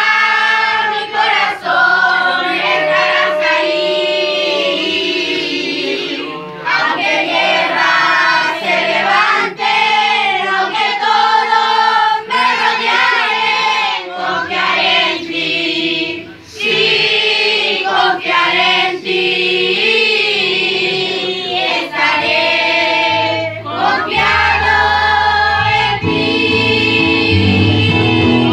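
Children's choir singing a Christian song, with adult voices singing along behind them. There is no instrument for most of it; a low accompaniment comes in near the end.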